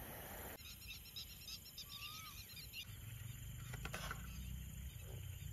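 Faint night-time field ambience of insects chirping in rapid high trills, with one short bird-like chirp. In the first half second a steady hiss from the camping gas stove under a boiling pot cuts off. A low rumble and a few soft clicks follow in the second half.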